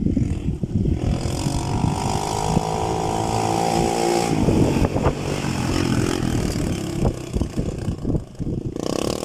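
ATV engine running hard, its revs rising and falling as it is driven in drifting turns on a dirt road, the pitch sliding down slowly in the middle.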